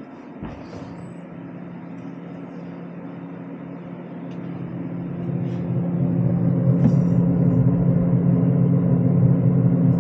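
A steady mechanical hum, growing louder about halfway through and then holding steady.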